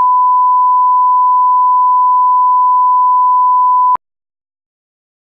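Steady 1 kHz line-up test tone, the reference tone that goes with colour bars, stopping abruptly about four seconds in.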